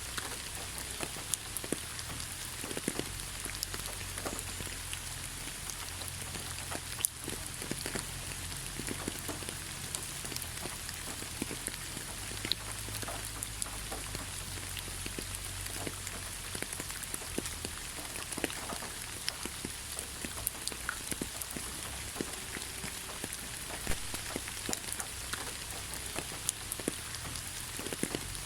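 Steady rain falling on a surface, with many individual drops ticking sharply against an even hiss.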